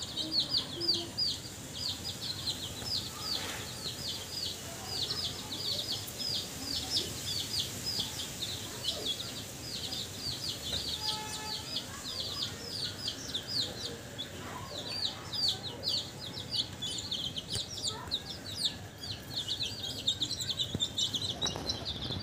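A flock of young chicks peeping without pause: a dense run of short, high, downward-sliding peeps, several a second, overlapping from many birds.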